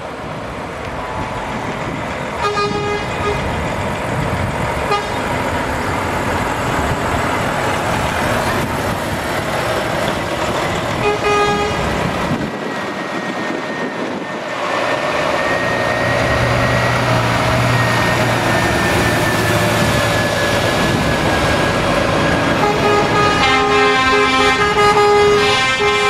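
Diesel lorries pulling away one after another, their engines running under short air-horn toots a few times. Near the end a long, loud air-horn chord of several notes sounds.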